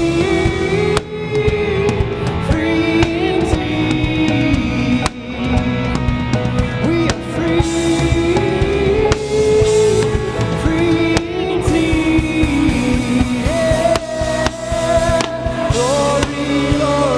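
Live worship band playing a rock-style worship song: drum kit, electric guitars, bass and keyboard, with a melody line running over the steady beat.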